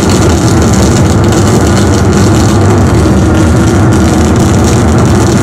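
Harsh noise from a guitar effects pedalboard through an amplifier: a loud, steady wall of distorted drone and hum, heavy in the low end, while the pedals' knobs are worked.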